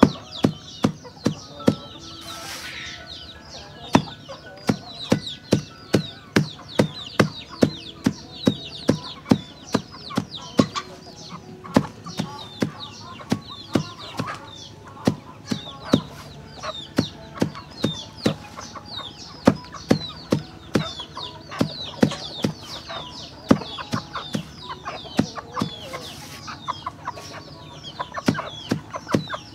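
Chickens clucking and chicks peeping in short high falling chirps, over a steady run of sharp taps, about two a second.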